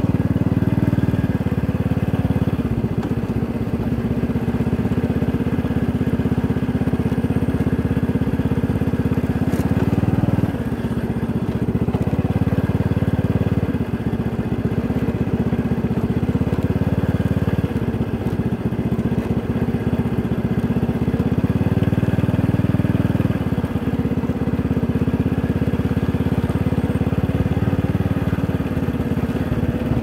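Motorcycle engine running at low speed, heard close from the bike itself; its note drops off and picks back up several times.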